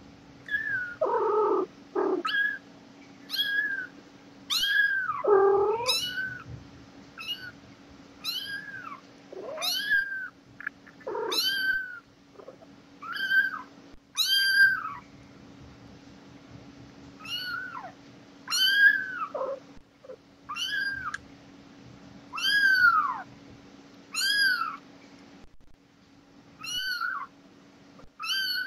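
Young kitten mewing over and over, short high-pitched cries about one a second, with two lower, longer cries about one and five seconds in.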